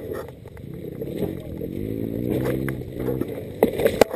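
Light clicks and scrapes as a Honda Tornado dirt bike's gear-shift lever and controls are worked by hand with the engine stopped, with a brief low hum midway and a few sharper clicks near the end.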